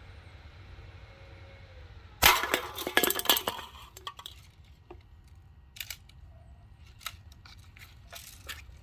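A sudden sharp crack about two seconds in, then empty aluminium cans clattering and clinking as they are knocked over and tumble for about a second and a half, with a few single clinks afterwards.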